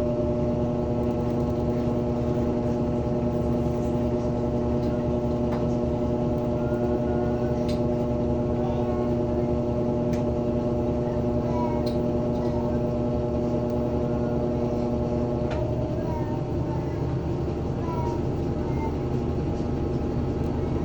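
Washing machine spinning at the end of its spin cycle: a steady motor hum with several steady tones, running smoothly without knocking. About fifteen seconds in the tones drop out, leaving a rougher hum as the spin winds down.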